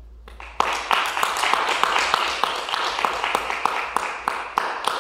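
A small group of people clapping, starting about half a second in.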